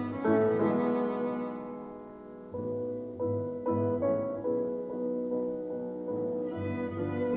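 Background music: piano notes struck about once a second over held string tones.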